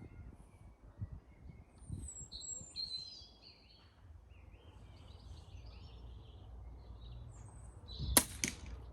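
Small birds chirping and singing over the low rumble of wind on the microphone. Near the end come two sharp clicks in quick succession.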